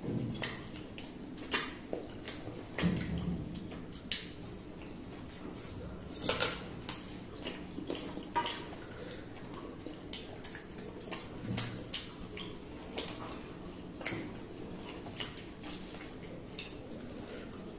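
Two people eating chicken curry by hand from brass plates: scattered, irregular light clicks and clinks of fingers and food against the metal plates, with wet mouth sounds of eating.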